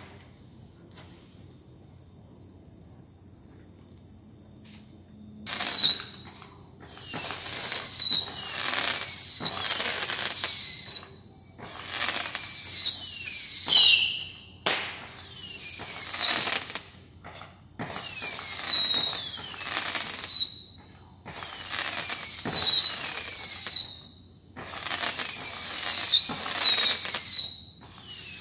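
Fireworks going off in a repeating barrage, starting about five seconds in. Each burst holds several overlapping whistles that fall in pitch, mixed with sharp cracks, and the bursts come about every two seconds.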